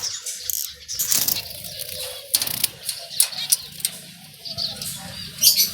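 Zebra finches and other small cage birds chirping in many short, overlapping high-pitched calls, mixed with scattered sharp ticks.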